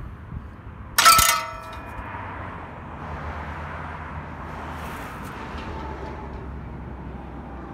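Homemade clay-pigeon trap machine firing: its steel throwing arm, driven by a stiff torsion spring, is released about a second in and swings round with a single loud metallic clang that rings briefly.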